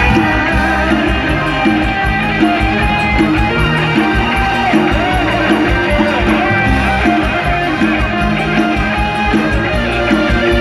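Loud live band music from a mor lam stage show, electric guitar over a steady bass and drum beat, played through a concert sound system.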